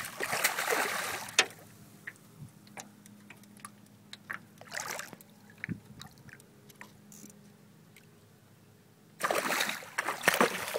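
A hooked muskellunge thrashing at the surface beside the boat, splashing hard for about a second and a half, then again from about nine seconds in, with only small splashes between.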